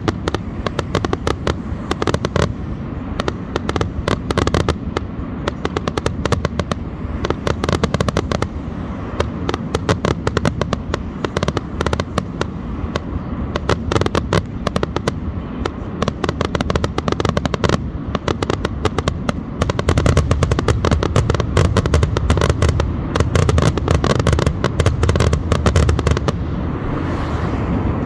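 Aerial fireworks display: a rapid, continuous run of shell bursts, bangs and crackling overhead. It grows denser and louder about two-thirds of the way through, then thins out near the end.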